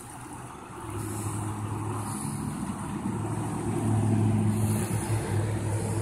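An engine running, a steady low hum that comes in about a second in and grows louder toward the middle.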